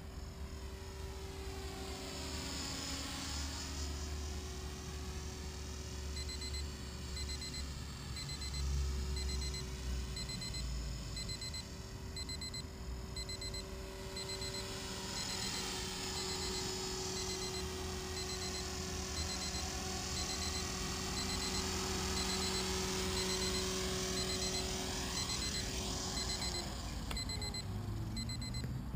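Blade 300X electric RC helicopter's motor and rotor whining steadily, the sound sweeping as the helicopter moves about, then winding down after it touches down near the end. A short electronic beep repeats a little faster than once a second from a few seconds in, with wind rumble on the microphone.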